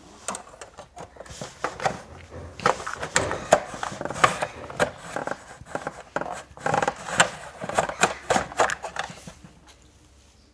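Small plastic toy kitchen pieces clicking and knocking in an irregular run of light taps as they are set into a toy fridge unit, stopping about a second before the end.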